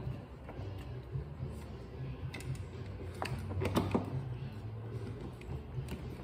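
Hand screwdriver turning a screw into a plastic cover, with scattered small clicks and ticks and a quick cluster of them about three to four seconds in.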